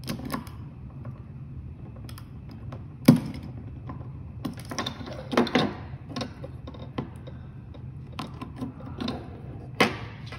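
Irregular clicks and knocks of small electronics being taken apart by hand: an Arduino Uno pulled off a CNC shield and a stepper driver module pulled out of its pin header, with parts set down on a wooden desk. The sharpest click comes about three seconds in, over a low steady hum.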